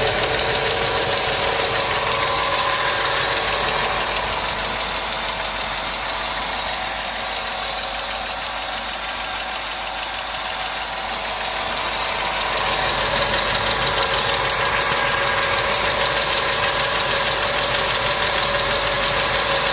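Mercedes-Benz W210's M111 supercharged four-cylinder engine running with a clear, rapid metallic ticking from worn hydraulic valve lash adjusters (lifter tick). The sound sags a little in the middle and comes back up about two-thirds of the way through.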